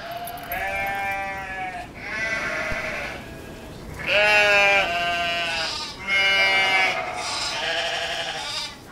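Sheep bleating: about five long baas, one after another, with short gaps between them.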